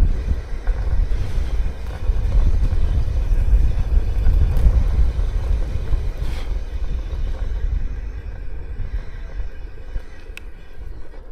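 Steady low rumble of wind buffeting a helmet-mounted camera and wheels running over a rough concrete and dirt track, with a few sharp clicks and knocks. It eases a little near the end.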